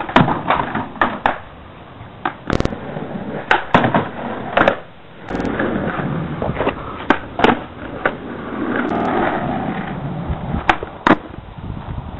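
Skateboard wheels rolling on rough concrete, broken by a dozen or so sharp clacks as the board's tail and deck slap the pavement on pops and landings.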